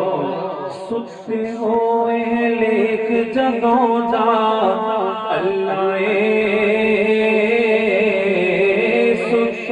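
Male voices chanting a hamd in devotional recitation: a sustained, melodic vocal line held over long notes, with a brief dip about a second in.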